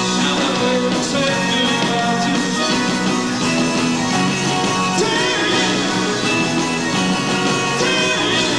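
Rock and roll band music at a steady loud level, with guitar and a rhythm section.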